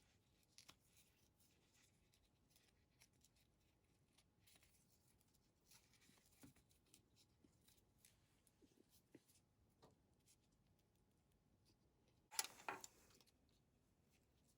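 Faint, scattered handling sounds of craft materials (canvas and nylon webbing) being worked by hand: light taps and rustles, with one brief louder rustle about twelve seconds in.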